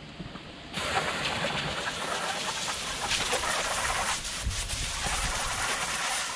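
Garden hose spray nozzle jetting water onto a cleaning table, a steady hiss that starts about a second in, rinsing off fish blood.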